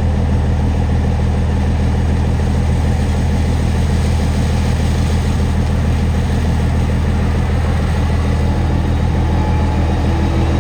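Heavy diesel engine running steadily at an even speed, a low constant drone.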